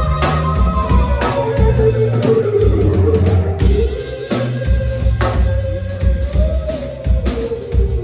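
Band playing live rock music: drum kit hits about once a second over a bass line, with guitar and a long held melody line that slides slowly in pitch.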